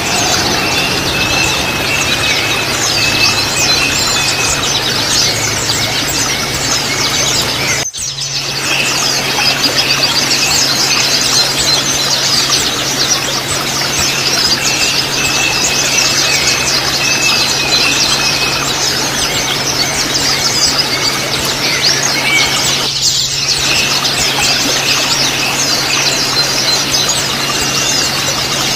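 White-eyes (pleci) twittering in a dense, rapid stream of high chirps, the 'ngriwik' twitter, with a thin steady whistle coming and going behind it. The sound breaks off very briefly about eight seconds in.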